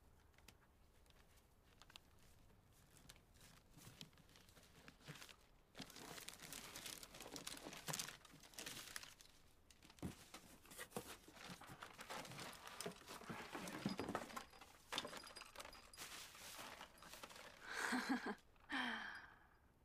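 Gift wrapping paper rustling, crinkling and tearing as a present is unwrapped, in fits over several seconds. Near the end, a woman's voice makes a brief sound.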